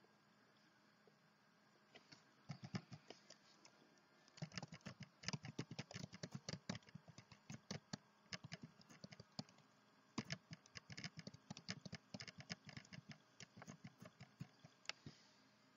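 Faint typing on a computer keyboard: quick, irregular key clicks in runs with short pauses, starting about two seconds in and stopping near the end.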